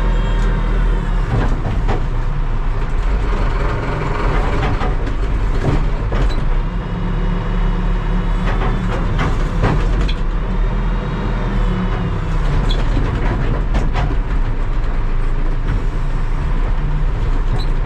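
Terex TLB-815 backhoe loader's diesel engine running under working load, revving up and dropping back several times, with scattered knocks and clanks.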